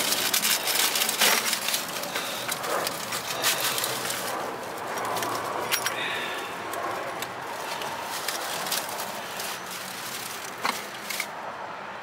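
Hand tools working on a car's suspension: a quick run of clicks and knocks as a nut is tightened down, thinning out to scattered clicks later.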